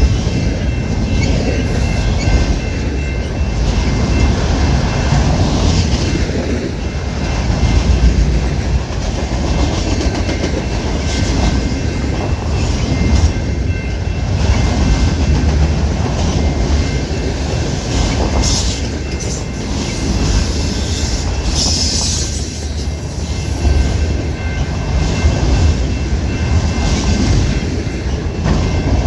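Freight train cars rolling past at a level crossing: a continuous loud rumble of steel wheels on rail with uneven clacking over the joints.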